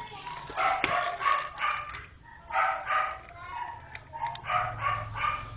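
A dog barking repeatedly, in runs of three or four short barks.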